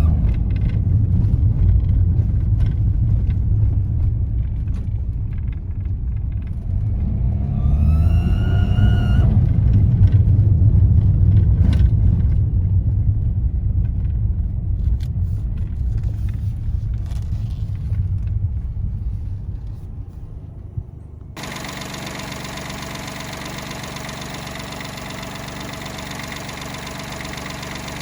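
Daihatsu Mira Custom (L275S) engine running, a low rumble whose pitch rises once about 8 seconds in as the engine speeds up. About 21 seconds in it cuts abruptly to a steady engine idle with a many-toned whine, the car being checked for an abnormal noise whose cause the owner has not found.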